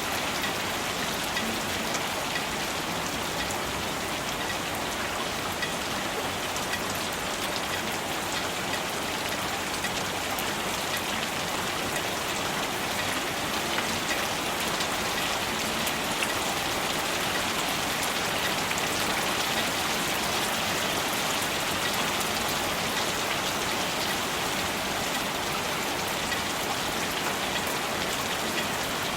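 Steady rain falling, an even hiss of drops with many small ticks of individual drops landing on a surface.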